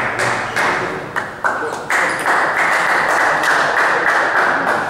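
A small crowd clapping after a point, building to steady applause about two seconds in.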